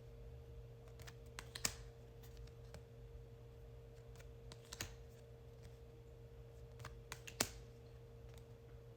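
Oracle cards handled by hand during a flip-through: a few sharp card snaps and taps spaced a few seconds apart, the loudest near the end, with smaller ticks between them over a faint steady hum.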